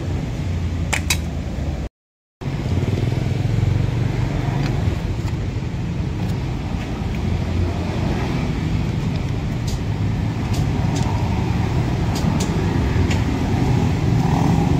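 Steady low rumble of motor traffic, with a few light metal clicks as the steel pulley block and its sheave are handled. The sound cuts out for about half a second about two seconds in.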